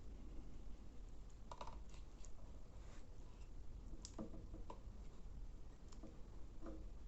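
Scattered light clicks and taps, about half a dozen at irregular intervals, from small tools and parts being handled on the workbench during soldering, over a low steady hum.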